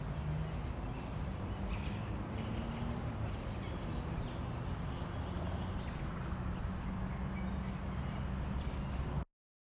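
Steady low rumble of distant engines, with a few faint short bird calls in the first six seconds. The sound cuts off abruptly near the end.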